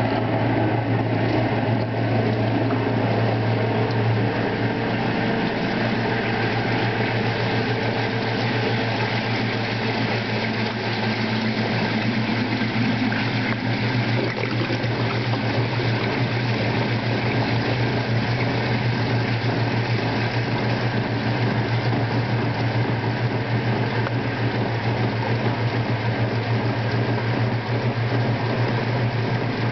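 1958 General Electric Filter-Flo washing machine draining and spinning: the motor runs with a steady low hum while the tub spins and the water is pumped out.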